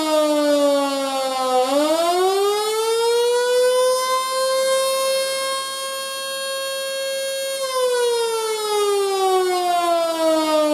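Model 2 electric outdoor siren, a 220 V version built around 1911, wailing in the up-and-down pattern of the attack signal. Its tone falls to a low pitch, winds back up about two seconds in and holds high for a few seconds, then slides down again near the end.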